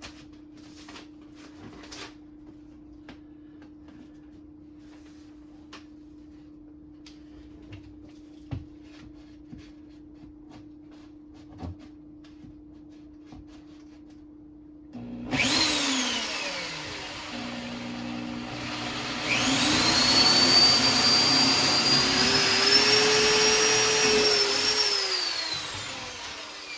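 Faint handling clicks, then about halfway in a power drill starts. Its motor runs up to a steady high whine as it bores a mounting hole, then winds down near the end.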